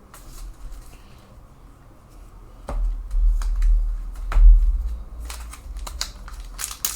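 Trading cards being handled and sorted, with papery rustles and sharp clicks that grow busier near the end. A few dull low bumps come about halfway through and are the loudest part.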